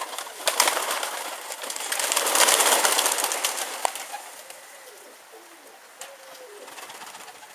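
Domestic pigeons cooing, with low warbling calls in the second half. Before that, a rustling hiss with scattered clicks swells and then fades over the first few seconds.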